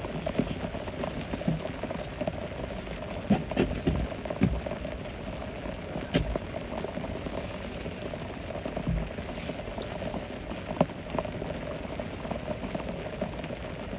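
Steady rain pattering on a boat's canopy top, with a few scattered knocks.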